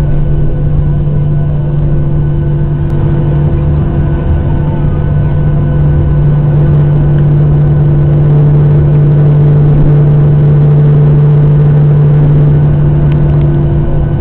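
Boeing 737-800's CFM56-7B turbofan engines running at high thrust for the takeoff roll, a loud steady hum with a rumble beneath it, heard inside the cabin. It grows slightly louder about halfway through.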